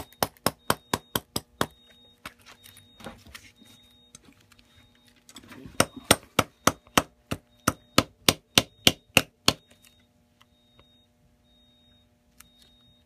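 Shoemaker's hammer tapping small nails into a boot by hand, in quick even blows about four a second. The blows pause for a few seconds of rustling and scraping, then start again and stop about three-quarters of the way through.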